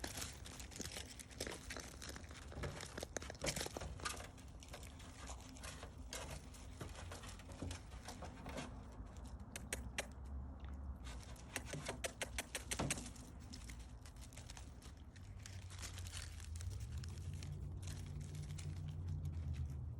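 Light crunching and crackling in snow, a scatter of small irregular clicks, with a low rumble building near the end.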